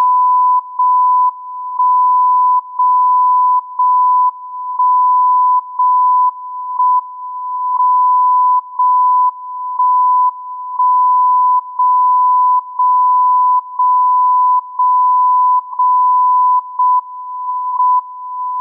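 JJY 60 kHz longwave time signal received on a software-defined radio, heard as a steady tone near 1 kHz. The tone drops in level and comes back about once a second, and the loud parts vary in length, which is how the time code is pulsed out second by second. Two short pulses close together near the end are the pair of markers that flag the start of a new minute.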